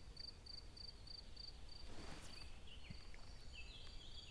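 Insect chirping in the background: a steady high-pitched pulse repeating about three times a second.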